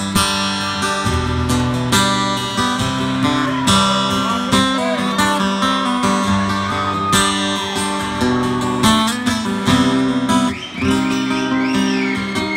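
Acoustic guitar strummed and picked in a steady rhythm: the instrumental intro of a country song played solo.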